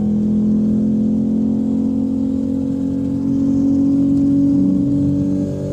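Car engine pulling under steady acceleration, its note rising slowly and then easing off near the end.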